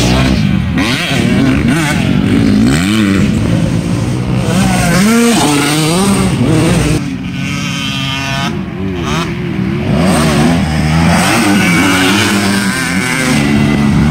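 Several motocross dirt bike engines revving up and down as the bikes ride the track, their pitches rising and falling and overlapping. The sound eases off a little about halfway through, then picks up again.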